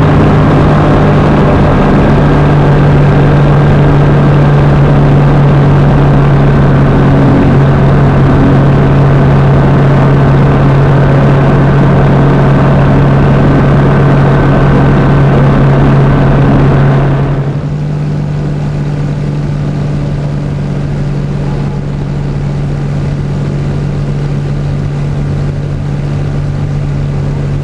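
Light sport aircraft's piston engine and propeller droning steadily in flight, as heard inside the cockpit. About two-thirds of the way in, the sound turns duller and a little quieter.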